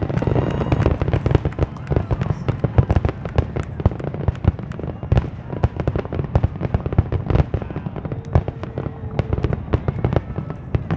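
Dense volley of aerial fireworks shells bursting and crackling, many sharp reports every second over a steady low rumble.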